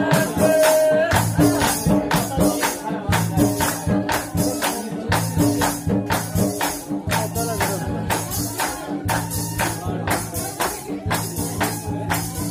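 Live Himachali folk music for a Pogli khed dance. A bansari (bamboo flute) plays the melody over a steady percussion beat of about two strokes a second.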